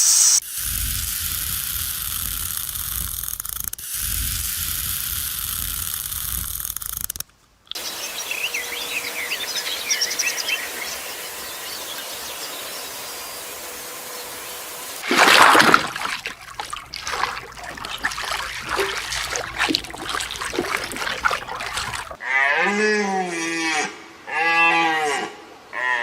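Steady outdoor noise with a low rumble and some faint high chirps, then scattered knocks and clatter. Near the end, livestock bleat three or four times.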